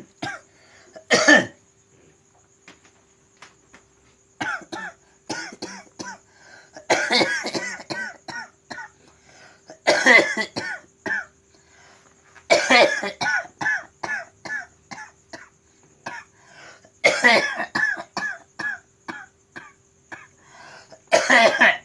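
A person coughing in repeated fits: a loud cough every few seconds, each followed by a run of short hacking coughs. It is the persistent cough of a patient under treatment.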